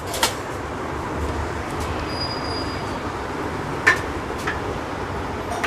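Steady background road-traffic noise, with a few light clicks: one just after the start and two about four seconds in.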